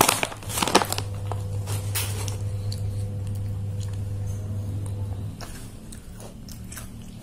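Crunching and chewing of puffed snacks, with a few sharp crackles in the first second, over a steady low hum.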